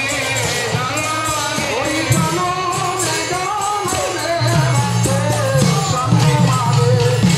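Devotional kirtan: a khol (mridanga) barrel drum beating a rhythm under group chanting, with steady strokes of hand cymbals ringing over it. The deep drum strokes grow stronger about halfway through.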